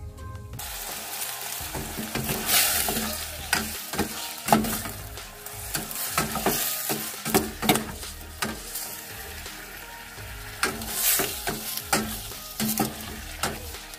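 Chicken livers sizzling in hot oil in a stainless steel pot while a metal ladle stirs them, scraping and clinking against the pot again and again.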